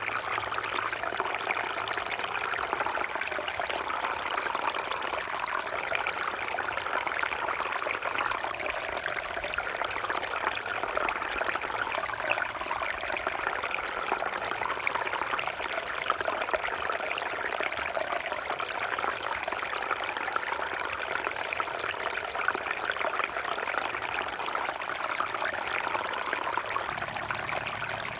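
Small waterfall running steadily into a pond, with an even splashing and trickling of falling water.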